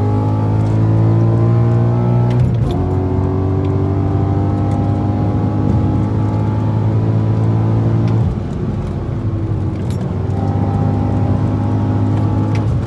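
BMW Z4 35iS twin-turbo straight-six engine pulling under acceleration, its note climbing steadily. It breaks off and resets about two and a half seconds in and again about eight seconds in, as at gear changes.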